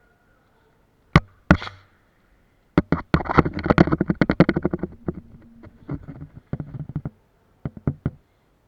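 Airsoft guns firing: two single shots, then a rapid burst of about eight to ten shots a second, then a few scattered shots near the end.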